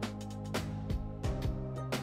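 Background music: held notes under a steady beat of drum hits about two a second.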